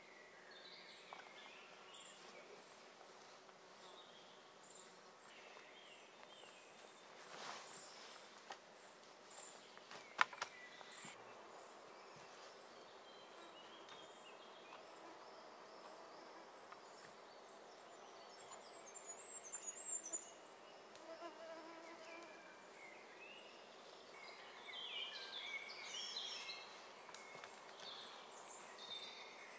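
Quiet forest ambience: scattered birdsong and a high chirp repeating at a steady pace, with faint insect buzzing. Two sharp knocks come about seven and ten seconds in, the second the loudest sound.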